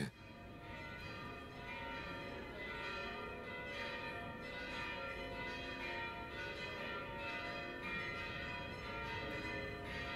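Church bells ringing: several bells struck again and again in quick succession, their tones overlapping and ringing on between strikes.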